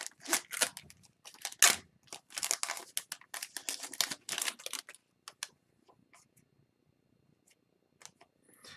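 Foil wrapper of an Upper Deck hockey card pack being torn open and crinkled in the hands, a dense crackling rustle for about five seconds. After that only a few faint ticks.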